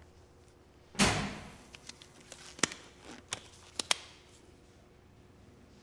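A loud slam about a second in, dying away slowly, followed by several sharp clicks and knocks.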